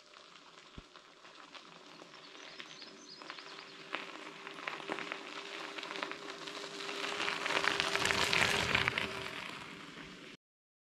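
Electric bike tyres crunching and crackling over a gravel road, growing louder as the bike approaches, loudest as it passes about eight or nine seconds in, then fading, with a faint steady whine underneath. The sound cuts off abruptly just before the end.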